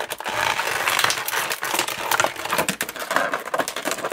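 Thin clear plastic bag crinkling and crackling as hands pull an action figure out of it: a dense, continuous run of crackles and small snaps.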